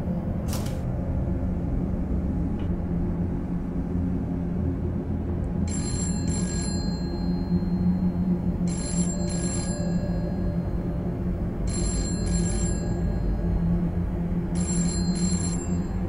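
A telephone ringing in double rings, four rings about three seconds apart, over a low, dark music drone.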